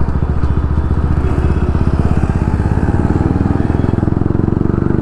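Bajaj Pulsar RS 200's single-cylinder engine running steadily while the bike is ridden, heard from on board.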